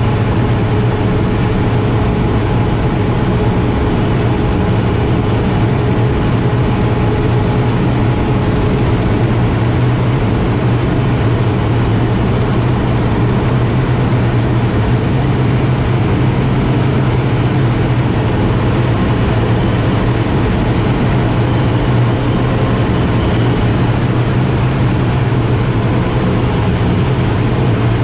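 Air Tractor 802 turboprop engine and propeller running at a steady high power setting, heard from inside the cockpit as a loud, even drone.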